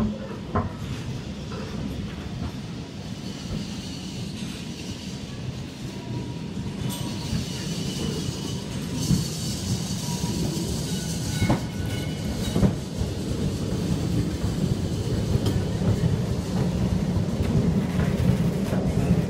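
A Lisbon funicular car running on its rails and passing close by: a low rumble of steel wheels on the track that grows louder as it nears, with a few sharp knocks and a brief thin wheel squeal a little past the middle.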